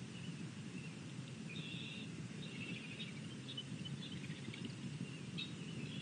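Wild birds chirping and calling in short high notes, several times, over a steady low background rumble.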